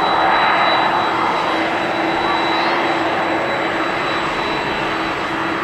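Boeing 777-300 jet engines at takeoff thrust: a loud, steady rushing roar with a steady hum running through it.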